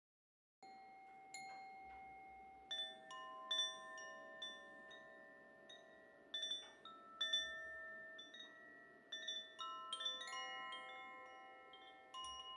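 Koshi chime, a bamboo-tube wind chime with tuned metal rods inside, struck irregularly by its swinging clapper: bright tinkling notes at several pitches that ring on, overlap and slowly fade.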